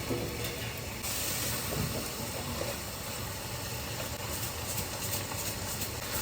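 Food frying in hot oil in a nonstick pan on the stove: a steady sizzling hiss that grows a little brighter about a second in.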